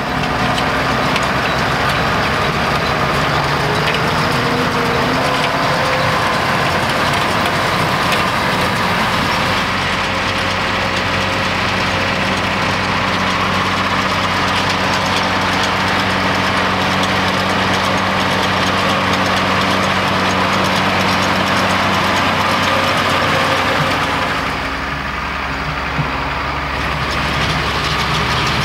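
Case Maxxum 140 tractor's six-cylinder diesel engine running steadily while pulling a Feraboli Extreme 280 round baler at work in hay; the sound drops slightly about 25 seconds in.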